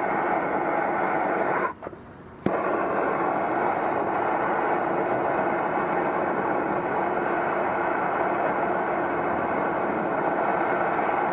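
Handheld blowtorch flame burning steadily as it heats a piece of charcoal. The flame drops out for under a second about two seconds in and comes back with a sharp click.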